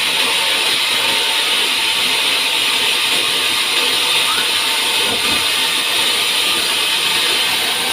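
Sawmill saw cutting through a pine log: a steady, loud hiss-like sawing noise that holds even throughout.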